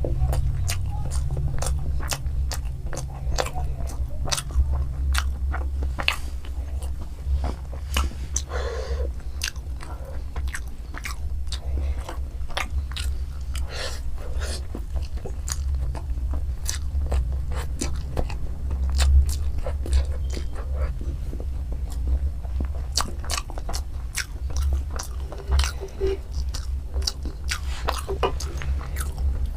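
Close-miked chewing of spicy fried chow mein with egg: a dense run of small mouth clicks and crunches over a steady low hum.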